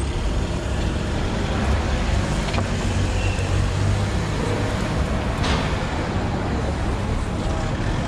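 Steady low rumble of city traffic, with a single brief click about five and a half seconds in.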